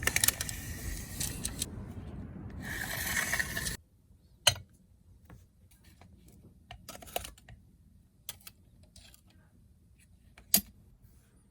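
Pieces of scrap aluminum and brass clinking and rattling against each other for about four seconds, cutting off abruptly. This is followed by a quiet stretch with a few isolated sharp clicks.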